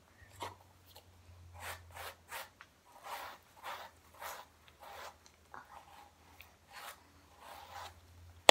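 A hairbrush drawn through long hair in a quick series of scratchy strokes, about two a second.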